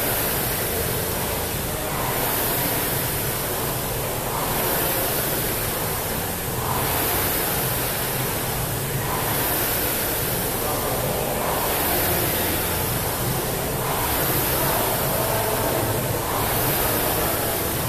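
Air-resistance rowing machine flywheel whooshing with each pull, a rising and falling rush of air about every two and a half seconds at a steady stroke rate.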